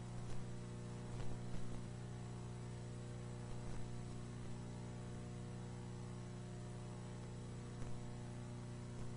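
Steady electrical hum with hiss and a few faint clicks scattered through it: the noise floor of an old film transfer that has no sound of its own.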